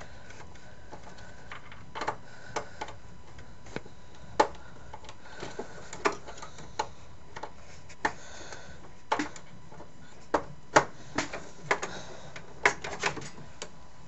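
Irregular clicks and light knocks as a SATA cable and its plastic connector are handled and pushed into a port inside a metal PC case, the clicks coming unevenly, a few at a time.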